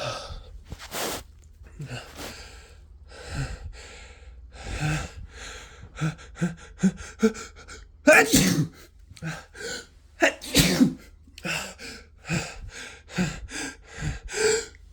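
A person with the flu in a fit of sneezing: a long run of sharp sneezes and gasping in-breaths, with a quick string of small ones just past the middle and the loudest sneezes about eight and ten and a half seconds in.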